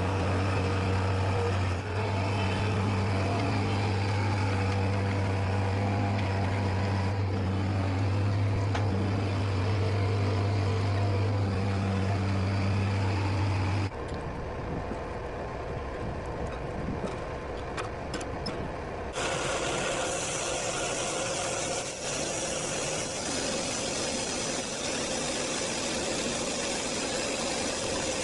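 A loader's engine running steadily with a deep hum as it carries a log. About halfway through the sound cuts to a quieter stretch with a few knocks. About two-thirds through, the homemade bandsaw mill starts sawing the log: its 24-horsepower Honda V-twin engine runs under load and the blade makes a steady rushing noise.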